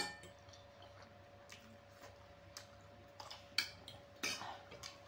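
Metal fork and spoon clicking against a plate as they scrape it and are laid down on it: a sharp click at the start, then a few more clicks and smacks, the loudest about three and a half seconds in. Close-mic chewing of the last mouthful, over a faint steady hum.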